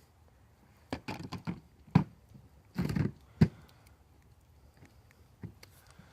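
A handful of sharp knocks and clatters: a quick run about a second in, a loud knock near two seconds, a short rattle just before three seconds and another loud knock soon after, then one faint knock near the end.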